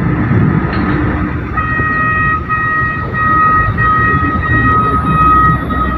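Container reach stacker's diesel engine rumbling under load, with its electronic warning alarm starting to beep about one and a half seconds in.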